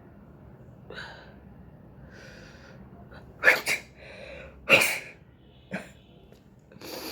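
A person sneezing twice loudly, about a second and a half apart, with short sharp breaths in before and between. The sneezes are provoked by tickling the inside of the nose with a cotton bud.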